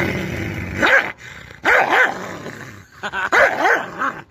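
Rottweiler growling low, then giving about five short barks that rise and fall in pitch, in quick runs: a warning while guarding the piece of pipe it is chewing from a poking stick.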